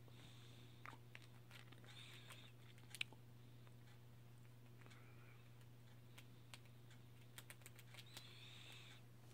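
Very faint clicks and scratching of a squirrel nibbling food held in its paws, over a low steady hum; a cluster of quick clicks comes near the end.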